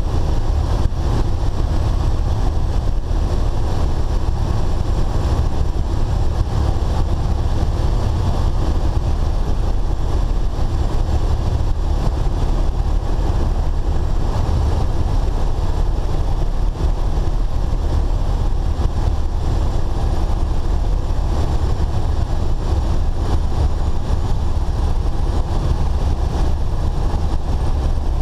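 Cessna 172SP's four-cylinder Lycoming engine and propeller running steadily, heard from inside the cabin.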